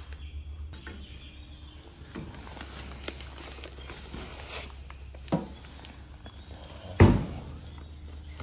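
Handling at a vending machine's pickup compartment as a boxed item is taken out: small clicks and rustles, a sharp knock about five seconds in and a heavy thump about seven seconds in, over a steady low hum.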